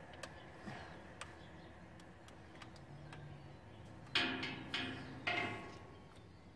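Plastic wiring-harness connector being handled, with faint scattered clicks. About four seconds in come three sharper plastic clicks close together as the module's plug is pushed into the tractor's factory MAP sensor connector.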